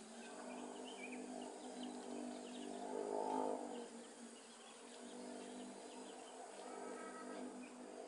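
Short, high chirps of nestlings begging in the nest, scattered over a steady low hum that swells briefly about three seconds in.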